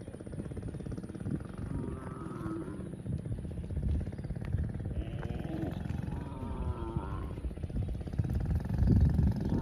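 Cow mooing: a drawn-out call about two seconds in and a longer one from about five to seven seconds in, over a steady low rumble.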